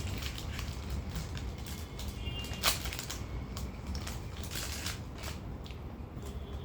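Plastic snack wrapper being handled and opened, with irregular crinkling and clicks and one sharp crack about two and a half seconds in.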